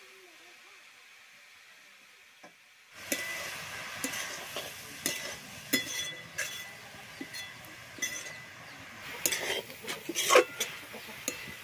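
Metal spatula stirring red leafy greens in a metal wok, scraping and clinking against the pan over the sizzle of frying. The sizzle and clinks start suddenly about three seconds in, after a quiet start.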